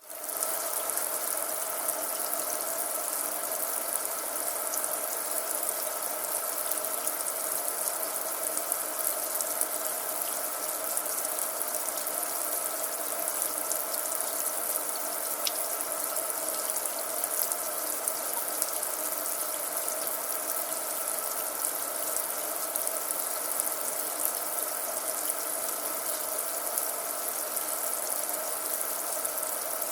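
Tap running into a sink, a steady, unchanging stream of water.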